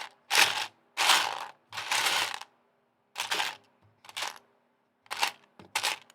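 Loose plastic Lego pieces clattering in short bursts, about seven times, as they are rummaged through and picked out of a pile.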